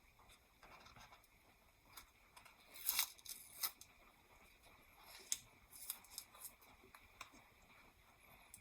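Small plastic model-kit parts being handled on a work surface: faint rustling with scattered light clicks and taps, the sharpest about three seconds in and again just after five seconds.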